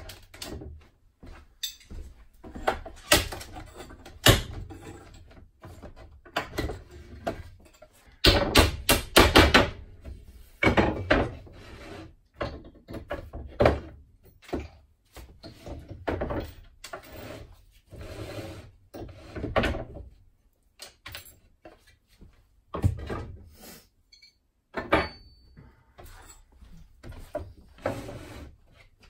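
Wooden trim being pried off an old wooden light box with a small flat bar: irregular knocks, clatters and creaks of wood and brad nails giving way. About eight seconds in comes a run of loud, rapid knocks lasting a couple of seconds.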